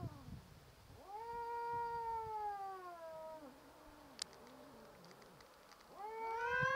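Male cats yowling in a territorial standoff: long, drawn-out caterwauls, one held for about two and a half seconds that rises, holds and sags in pitch. Near the end another yowl starts, climbing in pitch and growing louder.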